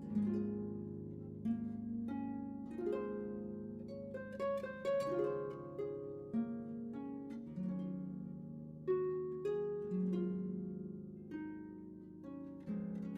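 Background music of plucked strings, a harp-like melody of single notes that each sound sharply and then fade.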